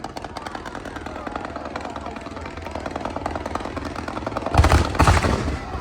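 Fireworks: a dense, rapid crackling of many small pops, then two loud booms of shell bursts about four and a half and five seconds in.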